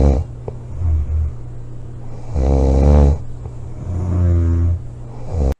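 A girl snoring loudly, a rattling, buzzing snore repeating every one to two seconds. The loudest snore comes about halfway through.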